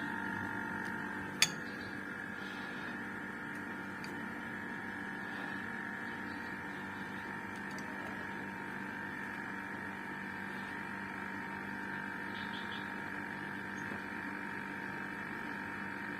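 Steady hum of a running air conditioner unit, with one sharp click about a second and a half in.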